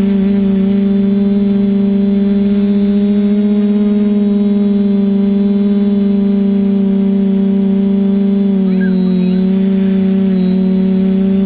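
TBS Discovery clone quadcopter's four motors and propellers humming and whining steadily in flight, heard close from on board the airframe. The pitch wavers and dips slightly a little after eight seconds in.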